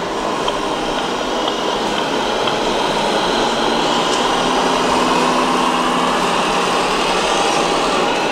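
Steady running noise of radio-controlled model vehicles, with a faint low hum through the middle.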